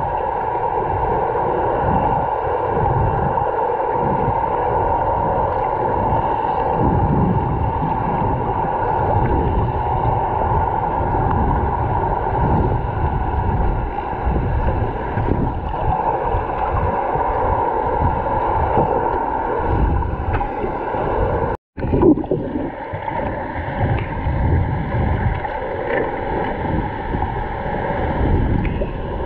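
Muffled, steady rush of churning water and bubbles picked up by a camera held underwater, with a brief dropout to silence about three-quarters of the way through.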